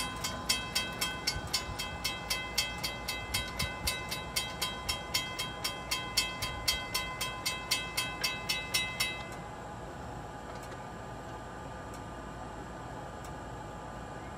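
Railroad grade-crossing bell ringing at about three strokes a second, then stopping suddenly about nine seconds in. A steady faint hiss remains.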